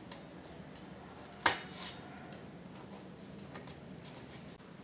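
Small kitchen knife cutting crumbly kalakand inside a stainless-steel tiffin box, the blade lightly scraping and clicking against the steel, with one sharp metallic clink about one and a half seconds in.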